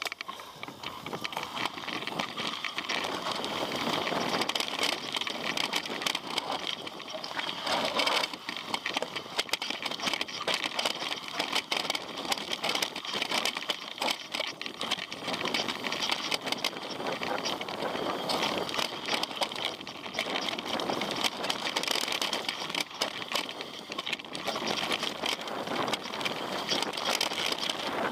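Mountain bike riding down a rocky trail: steady tyre noise over gravel and rock, with constant rapid clattering and knocking of the bike over the bumps.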